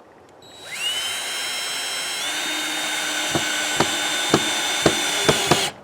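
Power drill driving a screw into wood. The motor spins up with a rising whine, runs steadily with a small rise in pitch partway through, and gives about six sharp clicks in its last couple of seconds before stopping abruptly.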